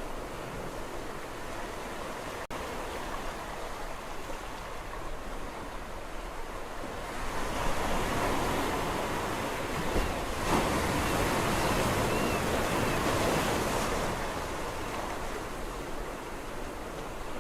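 Sea waves on a shore: a steady rush of surf that swells into a louder wave breaking and washing in from about seven seconds in, then eases back.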